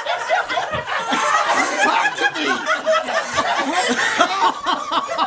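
A group of people laughing, with scattered chatter mixed in.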